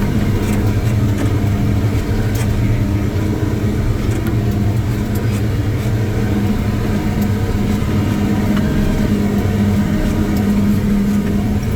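Tigercat 620E skidder's diesel engine running steadily, with a few faint clicks and rattles over it.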